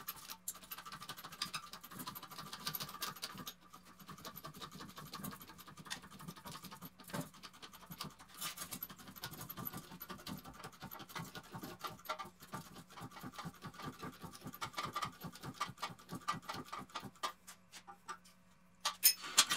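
Hydraulic bottle jack on a manual tube bender being pumped by hand: a fast run of faint, regular clicks, several strokes a second, as the die bends steel tubing to 90 degrees. A couple of louder knocks come near the end.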